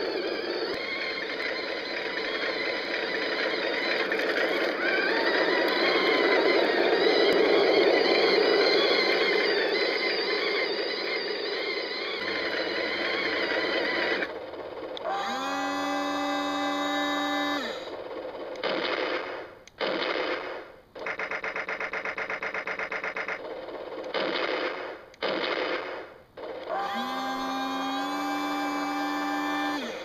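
True Heroes 1/16-scale M1A1 Abrams RC toy tank running on pavement: its small electric motors and gearboxes whine steadily for the first half, then in short start-stop runs, one spinning up to a steady pitch, with a fast rattling stretch in the middle.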